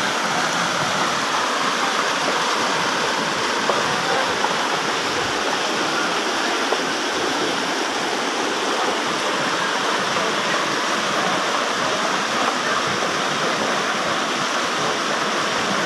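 Flash-flood water rushing fast down a dirt street, a steady, unbroken noise of muddy floodwater.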